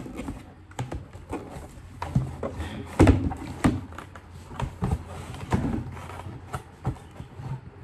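Cardboard box and its cardboard insert being handled while unboxing: flaps and card rustling, scraping and knocking, with a sharper knock about three seconds in.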